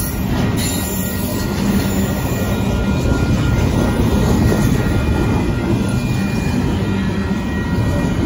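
BNSF double-stack intermodal freight train's cars rolling past, a loud, steady rumble of wheels on rail.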